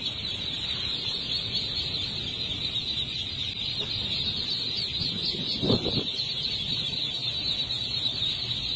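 Dense, steady chorus of high-pitched peeping from hundreds of ducklings. One short, lower call stands out just before six seconds in.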